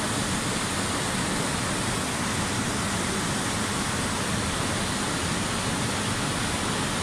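Fast mountain river rushing over boulders in white-water rapids, a steady, unbroken rush of water.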